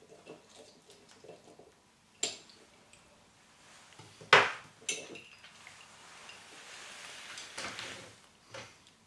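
Metal knife clinking against a boiled egg and its egg cup as the top of the egg is cut open: a few sharp clinks, the loudest about four seconds in, then a soft rustling for a couple of seconds.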